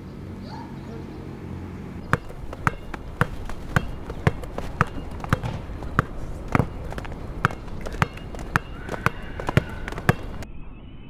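Basketball being dribbled on a hard outdoor court: sharp bounces at a steady pace of about two a second, starting about two seconds in.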